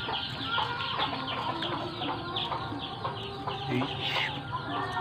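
Fowl chirping and clucking: a dense run of short falling peeps, several a second.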